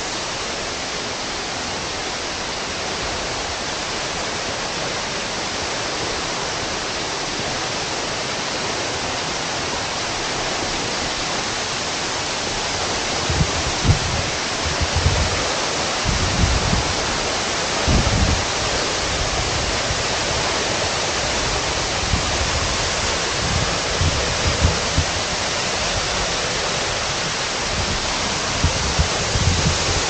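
Waterfall, a tall narrow cascade falling onto rock into a plunge pool, giving a steady rush of falling water that grows gradually louder. From about halfway, irregular low thumps are on the microphone.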